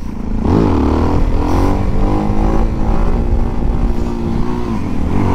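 Suzuki DRZ400SM supermoto's single-cylinder four-stroke engine under way: a quick rise and fall in revs about half a second in, then the revs climb and hold steady.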